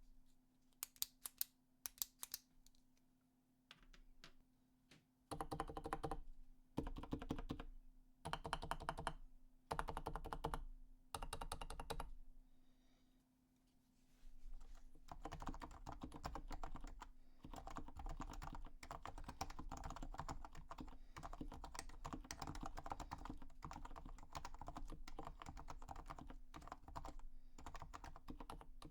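Typing on a lubed and tuned Leopold FC660C Topre keyboard with 45 g springs, #3 silencing rings and Realforce R2 keycaps. It comes first in short bursts with pauses, then as steady continuous typing from about halfway in. In the first couple of seconds there are a few sharp separate clicks, the Bic Clic pen clicked as a volume reference.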